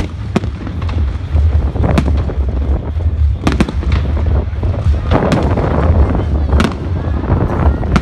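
Fireworks display: sharp bangs of bursting shells every second or so, over a steady low rumble.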